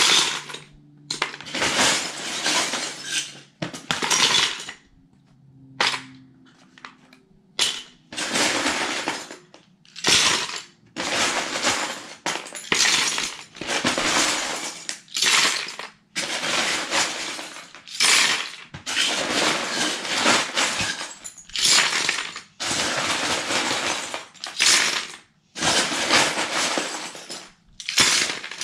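Loose Lego bricks poured into a bucket batch after batch, a rattling clatter of plastic pieces lasting a second or two each time with short pauses between.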